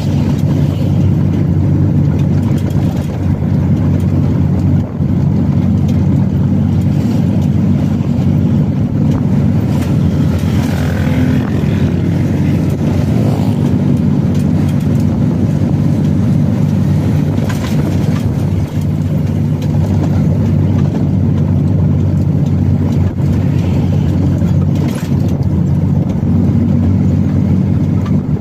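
Truck engine running steadily at cruising speed with road noise, heard from inside the cab as a continuous low drone.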